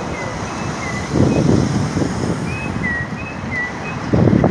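Wind buffeting the microphone over street traffic noise, with heavy gusts about a second in and near the end. A run of short high chirps repeats through it.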